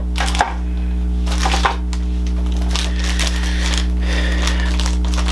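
Plastic packaging crinkling and small plastic toy parts clicking as they are handled and set aside, in short scattered bursts over a steady low hum.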